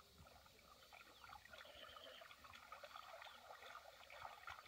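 Faint small splashes and dribbles of water as hands grope through shallow muddy water inside bamboo plunge-basket fish traps, the splashes coming more often from about a second in.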